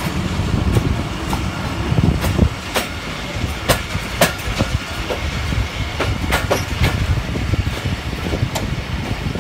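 Moving passenger train: the steady low rumble of its running gear, with irregular sharp clicks of the wheels going over rail joints.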